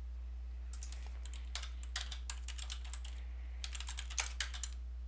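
Typing on a computer keyboard: a quick run of key clicks, a short pause about three seconds in, then another brief run, over a steady low hum.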